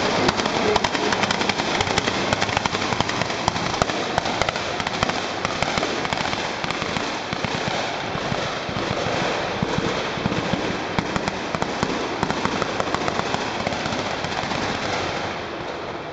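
Drift cars running at high revs while sliding through a corner, a loud, dense crackling racket full of sharp pops. It eases off a little near the end.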